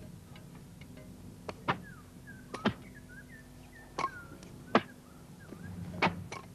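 About seven sharp knocks or cracks at irregular intervals, the loudest near the end, with short chirping bird calls between them in the middle.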